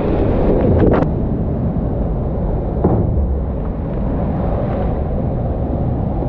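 Waterfall and rushing canyon water, a steady low roar close to the action camera, with a sharp knock about a second in.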